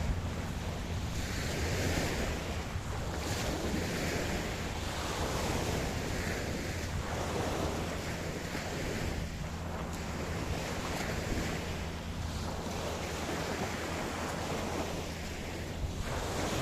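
Ocean surf breaking and washing onto a beach: a continuous rushing hiss of waves that swells and eases about every two seconds, over a steady low rumble.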